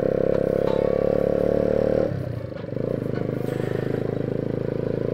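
Cafe racer motorcycle engine running while riding on a wet road. The engine note dips for about half a second about two seconds in, then runs steadily again.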